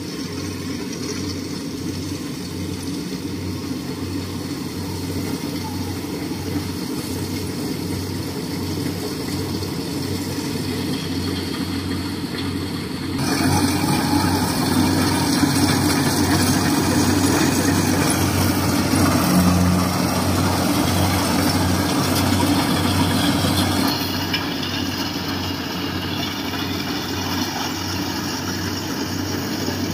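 Rice combine harvester running as it cuts and threshes ripe rice: a steady engine drone with a low note pulsing about one and a half times a second. It turns suddenly louder and fuller about halfway through, then eases back a little about two-thirds of the way through.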